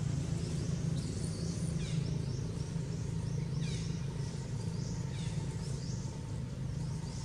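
Outdoor ambience: a steady low rumble under high bird chirps, with a few quick falling calls about two, three and a half and five seconds in.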